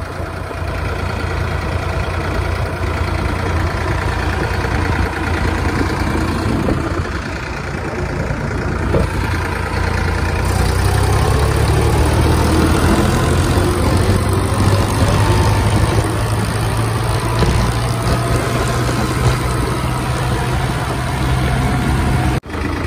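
Ford 3600 tractor's three-cylinder engine running steadily on the move at road speed; about halfway through its note rises and grows louder as the tractor speeds up.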